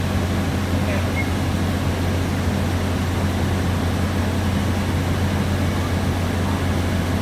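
Diesel train engine idling at a standstill: a steady low hum.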